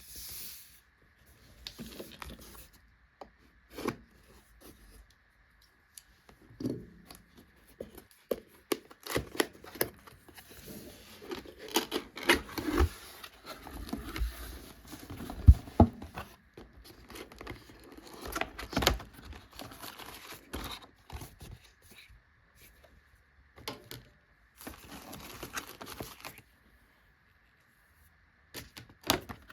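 Packaging of an AULA F108 Pro mechanical keyboard being unpacked: wrapping tearing and crinkling as the box and its contents are handled. The rustling comes in bursts with short pauses, with many sharp clicks and knocks, the loudest about halfway through.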